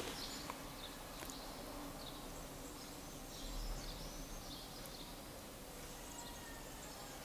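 Quiet room tone: a faint steady hiss with a few faint high chirps and a couple of small clicks.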